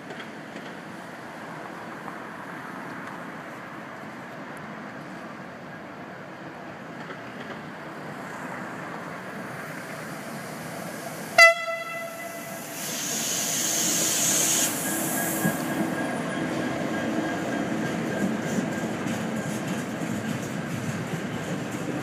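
A Comsa class 335 (Vossloh Euro 4000) diesel-electric locomotive hauling a freight train of box wagons, approaching and passing close by. Its engine rumble grows, and about halfway through it gives one short, sharp horn blast. A high hiss follows for about two seconds as the locomotive goes by, then the wagons roll past with a steady rumble and wheel clatter.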